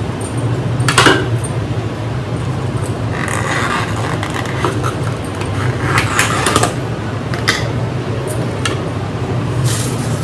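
Takeaway food packaging being handled: short crinkles and clicks of containers and wrappers, several times, over a steady low hum.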